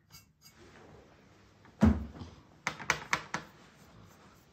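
Small hard objects handled on a tabletop: one thump about two seconds in, then a quick run of five or so light clicks and knocks.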